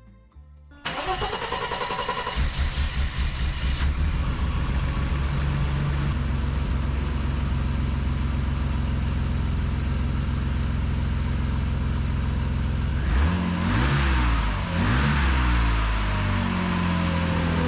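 1988 Mercedes 300E's M103 inline-six cranked on the starter and catching about a second in, then idling steadily. Near the end the engine speed rises and falls a couple of times.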